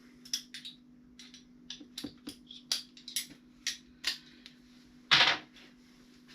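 Scattered light clicks and clinks of hand tools and small fasteners being handled while working on a motorcycle, with one louder short clatter about five seconds in, over a steady low hum.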